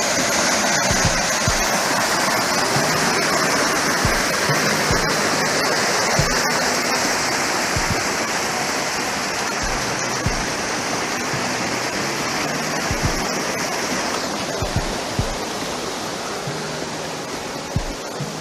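Creek water rushing and splashing over rock cascades, a steady loud rush that eases a little near the end, with occasional brief low thumps.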